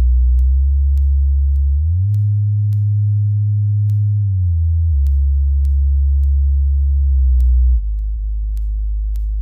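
Subwoofer test tone from a sound-check track: a deep bass sine tone that glides up in pitch about two seconds in, holds, glides back down around five seconds, and steps down in loudness near the end, with faint regular clicks about twice a second.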